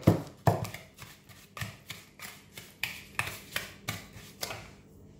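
A spatula knocking and scraping against a mixing bowl as it stirs muscovado sugar into oil, about two to three strokes a second, loudest near the start and stopping shortly before the end.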